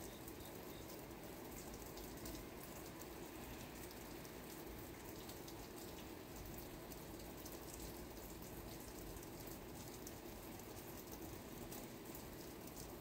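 Steady, quiet rain, with many separate drops ticking throughout.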